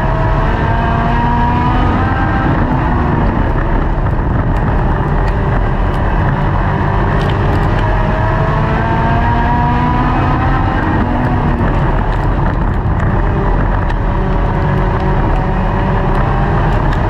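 Race car engine heard from inside the car's cockpit, running hard at racing speed. The loud engine note climbs several times under acceleration and drops back between the climbs.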